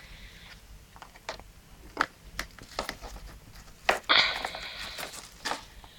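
Close rustling and scraping with scattered sharp clicks and ticks, swelling into a louder burst of rustling about four seconds in.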